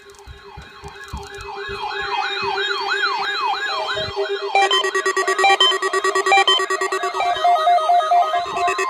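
Electronic siren wailing, its pitch sweeping up and down about three times a second over a steady lower tone, growing louder over the first two seconds. About halfway through, a second, stepped, beeping electronic alarm tone joins in and the sound gets louder.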